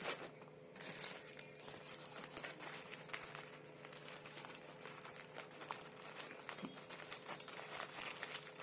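Crinkly plastic packaging being handled, with many small irregular rustles and clicks, over a faint steady hum.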